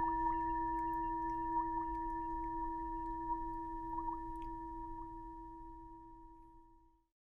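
A steady electronic drone of pure tones, one low and one higher, over a faint low hum, with short chirping blips scattered through it. It fades gradually and cuts off to silence about seven seconds in.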